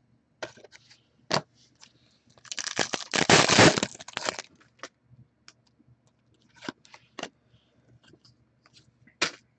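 Foil wrapper of an Upper Deck Artifacts hockey card pack torn open and crinkled by hand, a rush of tearing and crinkling about two seconds long in the middle. Before and after it come scattered light clicks and taps of cards being handled.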